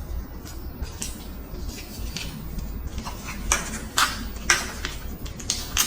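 Caramilk chocolate bar packaging crinkling and crackling as it is unwrapped, a run of crisp crackles with several sharper ones in the second half.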